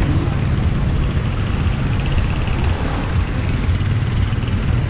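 Wind rumbling over the action camera's microphone while riding a Kaabo Wolf King 72V electric scooter, with a thin steady high-pitched whine throughout.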